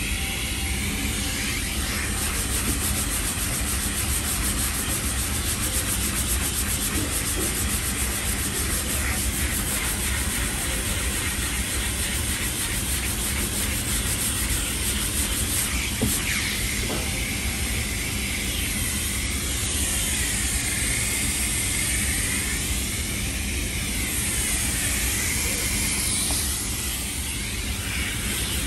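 Sandpaper on a purple 3M dust-extracting sanding block rasping back and forth over cured body filler, while the shop dust extractor drawing through the block's hose runs with a steady hiss and hum.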